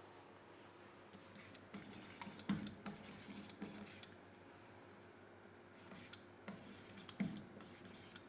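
Pen tapping and scraping on an interactive whiteboard while numbers are written by hand, in two spells of short strokes and taps; faint.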